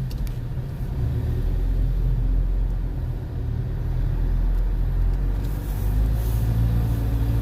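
Car engine and road rumble heard from inside the cabin while driving, a steady low drone.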